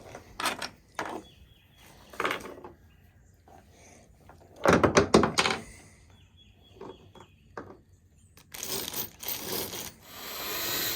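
Small metal bimini mounting fittings from a hardware kit being handled: scattered clicks and knocks, with a louder rattling clatter about five seconds in and rustling near the end.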